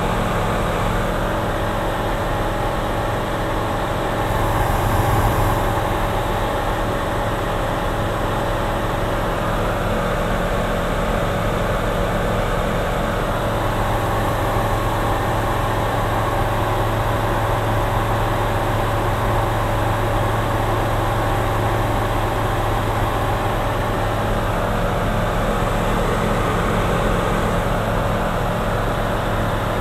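Steady drone of a single-engine light aircraft's engine and propeller, heard inside the cockpit in flight, with a brief swell about five seconds in.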